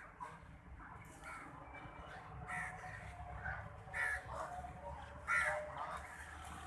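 Birds calling: a series of short calls, loudest around four and five seconds in, over a low steady rumble.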